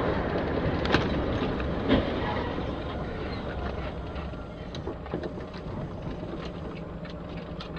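Dashcam recording of driving on a wet road in the rain: steady tyre and road noise, with two sharp bangs about a second apart early on as an SUV crashes off the road, followed by scattered light ticks.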